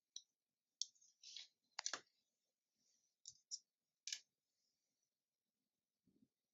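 Small sharp clicks and taps, about seven of them spaced irregularly, with a brief rustle, from handling a microSD card and its small plastic parts. The loudest click comes about two seconds in, and a soft low thud comes near the end.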